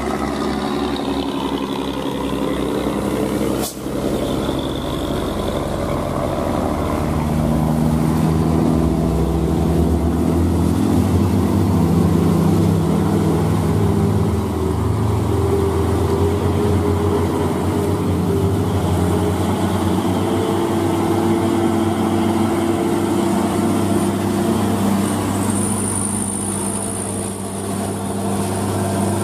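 Hino 500 truck diesel engine pulling up a steep grade in a steady drone that strengthens about seven seconds in, mixed with passing traffic. A short click and dip about four seconds in.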